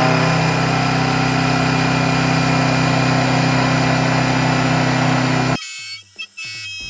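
Milling machine end mill cutting a steel bar, a loud steady machining drone with a strong low tone. It cuts off abruptly a little over five seconds in.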